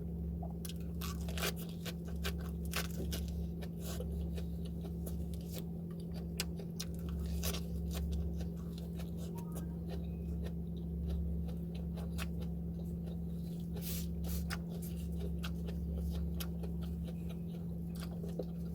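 Close-miked eating: irregular crisp crunches and chewing of food, over a steady low hum.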